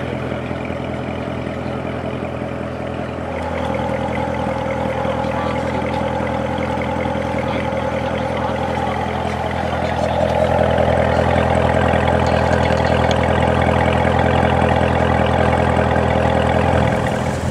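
Chevrolet Corvette C7 Z06's supercharged 6.2-litre V8 idling steadily through its quad exhaust, a deep even note. It gets louder about three and a half seconds in and again about ten seconds in.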